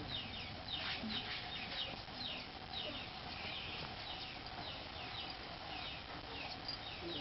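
Birds chirping rapidly: many short, high, falling peeps, several a second, over a low background hum.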